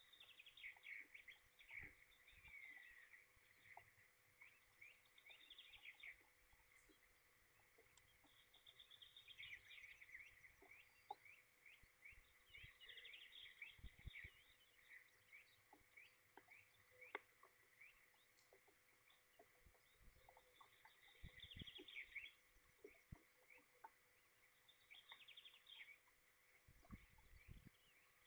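Faint songbirds singing: short trilled phrases repeated every few seconds, with scattered light taps of rain and a faint steady hum underneath.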